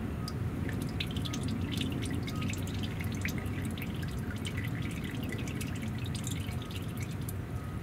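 Used engine oil pouring in a steady stream from the drain-plug hole of a Ford V10's oil pan and splattering into a drain pan below, the flow running freely with the filler cap off.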